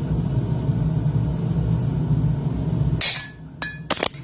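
A forge runs with a steady low rumble, then cuts off suddenly about three seconds in. A few sharp, ringing hammer blows on steel at the anvil follow near the end, as a blacksmith forges the taper of a hammer-eye punch.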